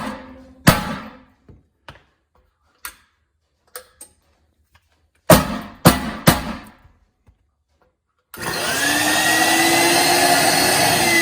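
Rubber-mallet blows knocking on a central vacuum power unit whose motor would not start, with three hard blows in quick succession about five seconds in. About eight seconds in the vacuum motor starts, its whine rising as it spins up to speed.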